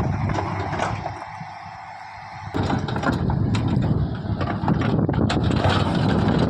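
Diesel engine of a JCB heavy machine running, with scattered metallic knocks and clicks. The engine sound drops away about a second in and comes back abruptly a second and a half later.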